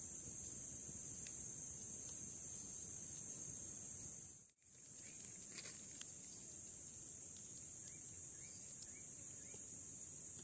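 Steady high-pitched drone of an insect chorus, with a few faint short chirps and small clicks in the second half. The sound cuts out for a moment about halfway through.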